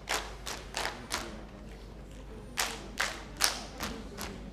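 Group body percussion by a line of kneeling dancers: sharp claps and slaps struck together in unison. About eight strokes come in two bunches, with a pause of a second or so in the middle.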